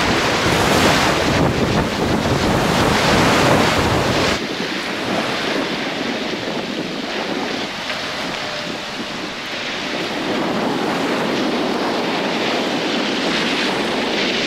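Sailboat's hull pushing through a choppy sea: water rushing and splashing along the side, with heavy wind buffeting on the microphone. About four seconds in it cuts suddenly to a softer, steady wash of water and wind.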